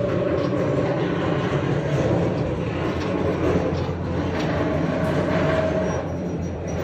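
Giant open-cast mining machine running and travelling on its crawler tracks: a loud, steady heavy mechanical rumble with rattling steel and a sustained whine.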